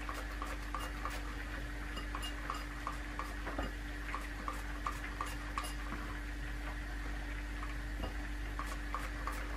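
Hand tossing shredded crab sticks in a small ceramic bowl: a run of light ticks and clicks, a few a second. Under it, the steady hum of an air fryer preheating.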